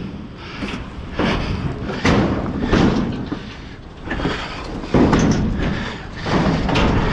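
Strong wind buffeting the microphone with a constant low rumble, while scrap is handled and loaded onto a trailer with several sudden thuds and knocks.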